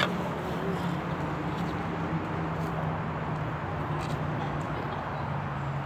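City outdoor background noise: a steady wash of traffic with a low engine hum, and a few faint clicks.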